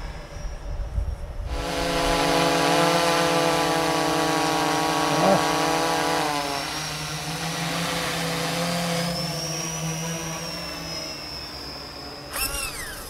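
Quadcopter's motors and propellers buzzing as it flies close by. The buzz swells about a second and a half in and holds steady, then drops in pitch and level around six seconds and fades toward the end.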